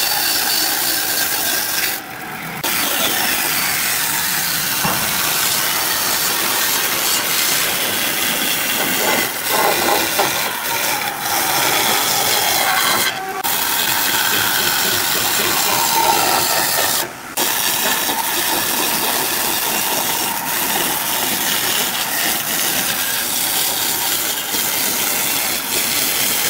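Bandsaw running with its blade cutting a curve through a thick block of laminated softwood: a steady sawing noise that cuts out briefly three times.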